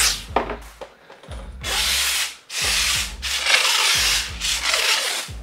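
Wiping and scrubbing out an egg container: about four rubbing strokes, each roughly a second long.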